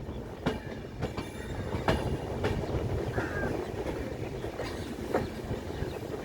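Indian Railways express train running on the rails: a steady low rumble with irregular sharp clacks of the wheels over rail joints, and a brief faint squeal about three seconds in.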